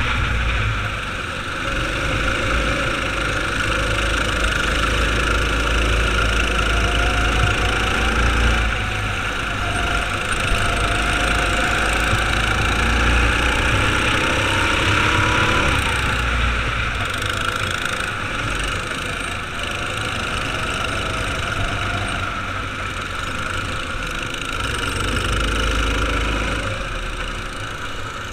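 Racing kart engine heard from a camera mounted on the kart, running hard at speed. Its pitch rises and falls repeatedly as the driver accelerates and lifts for corners, over a steady rushing noise.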